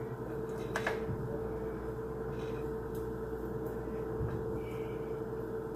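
A kitchen knife slicing an onion held in the hand: a sharp cut about a second in, then a few soft cuts, over a steady low hum.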